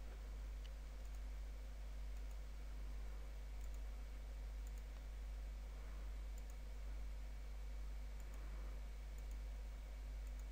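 A few faint computer mouse clicks, spaced a second or two apart, over a steady low hum and hiss.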